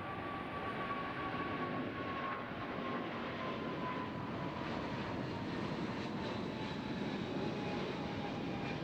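Boeing 777 twin-engine jetliner climbing out after takeoff: a steady jet engine roar with a whining tone that slowly falls in pitch as the aircraft passes.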